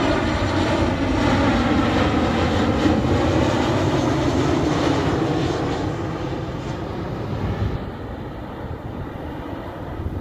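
Boeing 737-800 jet airliner's CFM56-7B turbofan engines running on final approach as it flies past close by. The engine noise is loud in the first half, then grows fainter as the aircraft moves away.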